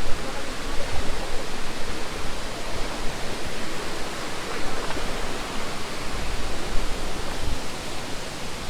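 Deojhar waterfall's water falling with force, a steady rushing noise, with a few brief low bumps.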